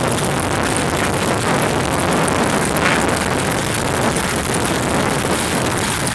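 Steady running noise of a moving vehicle, mixed with wind rushing over the microphone.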